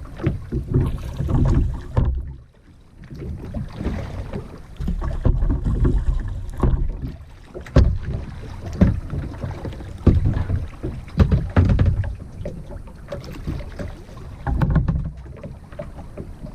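Kayak paddling: uneven splashes of the paddle in the water, with scattered sharp knocks, over a low rumble.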